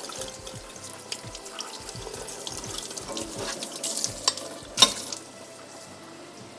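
Kitchen tap running into a stainless-steel colander of fresh fenugreek leaves in the sink, with small splashes and clinks as hands wash the leaves. A sharp knock comes just before the five-second mark, and the water is quieter after it.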